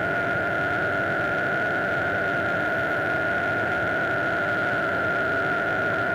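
Modular synthesizer holding a steady, noisy drone: a hissing wash of noise with a high held tone and a lower one beneath it, unchanging throughout.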